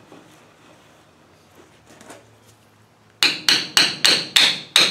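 A hammer tapping a part down into a Land Rover transfer box shifter housing. About three seconds in come about six quick, ringing metal taps, roughly three a second.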